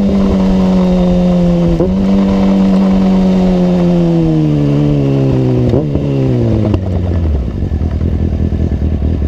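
Kawasaki ZX-6R inline-four engine, loud through a Two Brothers aftermarket exhaust, held at steady high revs, then the revs slowly die away and it settles into a lumpy idle for the last couple of seconds.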